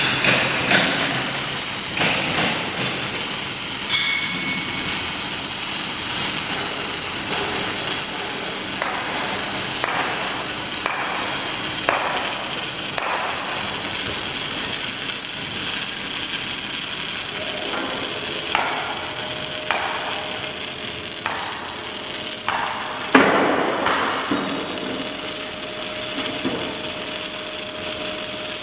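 Metal knocks and clanks, like hammer blows on steel, over a steady background hiss. There is a run of about one knock a second near the middle and a loud knock later on. A steady hum comes in a little past halfway.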